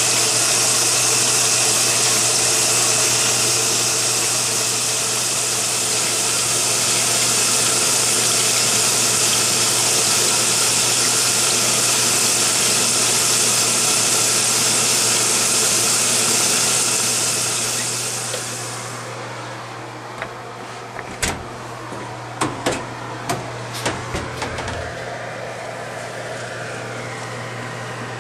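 Front-loading washing machine during a wash cycle: a loud, steady hiss with a low hum under it, until the hiss fades out about two-thirds of the way through. After that a quieter hum remains, with a run of sharp clicks and knocks as the wet laundry turns in the drum.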